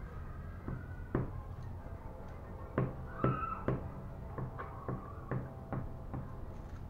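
Scattered light taps and knocks, about eight in all, as craft pieces and tools are handled on a tabletop, over a low steady hum.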